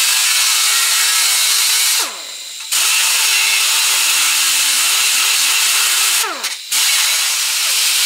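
Air-powered right-angle grinder with a grinding disc grinding down a fresh weld on a steel shock mount: a loud, steady hiss with a tone that wavers as the disc is loaded. It is let off twice, about two seconds in and again near six seconds, winding down in pitch and then starting up again.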